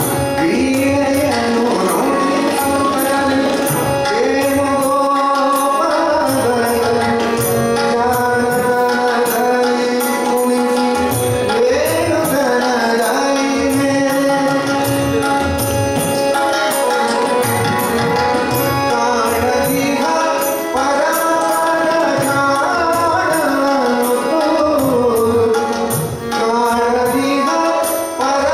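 Live Kannada devotional bhajan: a male singer sings a gliding, ornamented melody, accompanied by harmonium and tabla, with small hand cymbals keeping the beat.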